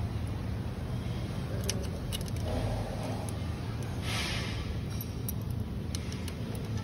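A few light metallic clicks and taps as small fittings are handled on a steel swing-chair frame, over a steady low hum, with a short hiss about four seconds in.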